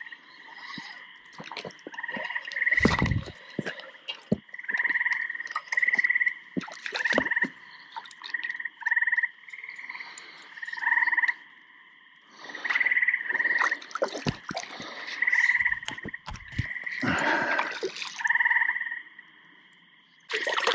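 Frogs calling in a chorus: short high notes repeated over and over, some overlapping. Through it come scattered clicks and a few splashes as a hooked brook trout is reeled in and netted.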